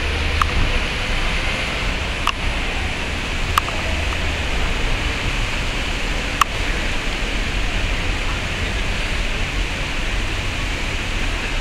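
Steady hiss of a wet city street: tyres and traffic on rain-soaked pavement, with a few sharp clicks in the first half.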